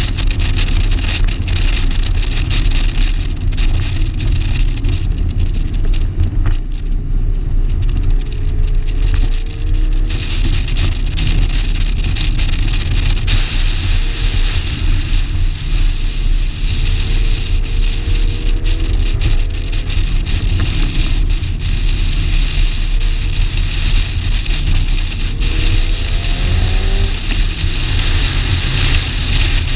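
1987 Shelby GLHS's turbocharged 2.2-litre four-cylinder engine running hard at speed on track, under a dense rumble of wind and road noise. The engine note rises several times, most clearly near the end.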